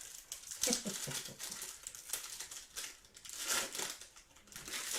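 Crinkling of a trading-card pack's foil or plastic wrapper being handled, in several short bursts.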